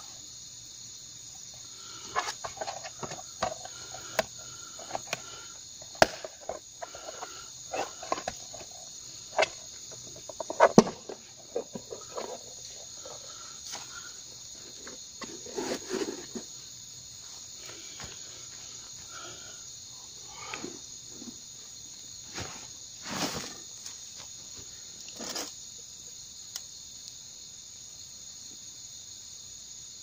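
Crickets chirring steadily and high, with a run of sharp clicks, knocks and plastic handling noises as a thin foamed-polypropylene PATATTO MINI folding chair is flexed and folded into a stool. The handling stops a few seconds before the end, leaving only the crickets.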